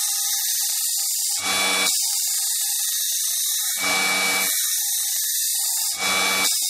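Electric tyre truer spinning a foam RC tyre while the cutter grinds the foam down: a steady hiss with a thin whine, and three louder grinding surges about two seconds apart.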